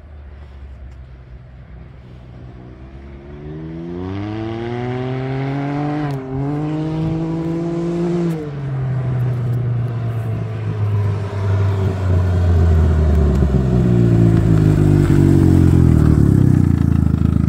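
Can-Am Ryker 900's three-cylinder Rotax engine through an RLS Echo Series exhaust with the baffle removed, accelerating in the distance, its note climbing steadily with a brief dip about six seconds in, then easing off. The engine grows loud as the bike comes close, its pitch falling as it slows near the end.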